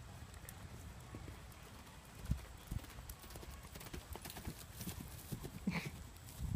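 Hoofbeats of a horse cantering on sand arena footing: dull, irregular thuds that begin about two seconds in and grow louder as the horse comes close and passes.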